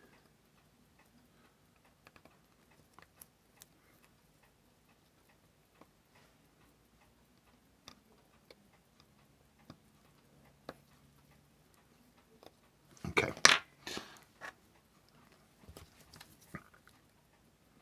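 Scattered small clicks and taps of watchmaker's tools and movement parts being handled on the bench, with a louder cluster of knocks and rustling about 13 seconds in and a smaller one near the end.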